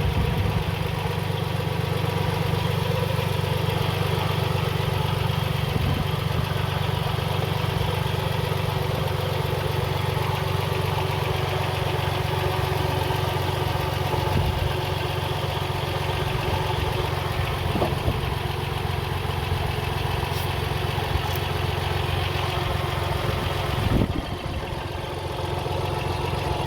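Car engine idling steadily with its accessory belts and pulleys turning. The owner blames the noise on a failing water pump that is leaking antifreeze. A knock sounds near the end, and the sound is a little quieter after it.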